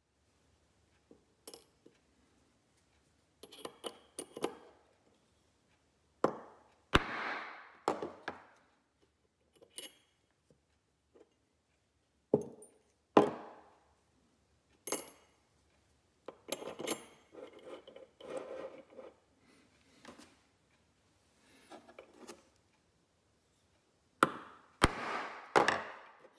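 Small steel check-valve balls and brass parts of a model boiler feed pump kit being handled and set into the bores of its bronze pump body: irregular light metallic clicks and clinks, some ringing briefly.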